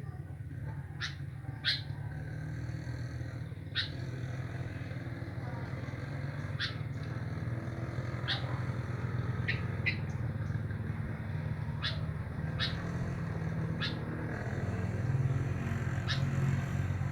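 Sooty-headed bulbul (kutilang) giving short, sharp chirps, about a dozen at irregular intervals, over a steady low hum.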